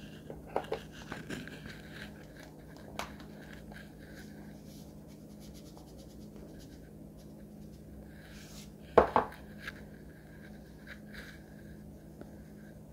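Kitchen cookware being handled over a steady low hum: a few light clicks early, then two sharp knocks of pots and pans about nine seconds in.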